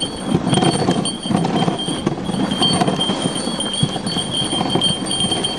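Dogsled runners scraping and hissing over hard, icy packed snow as the team pulls the sled. A thin high ringing runs steadily over the scraping.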